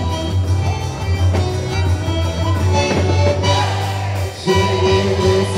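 Music: an instrumental stretch of a quadrilha junina song, pitched instruments over a steady bass, with a brief drop about four and a half seconds in.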